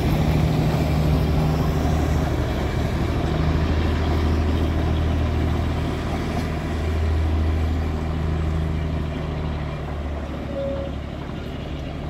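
Steady low engine drone of a Darjeeling Himalayan Railway diesel locomotive hauling its train away, slowly fading.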